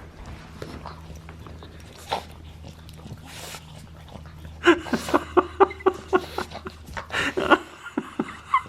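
A dog panting rapidly close by, about six short breaths a second, starting about halfway through after a few quieter seconds.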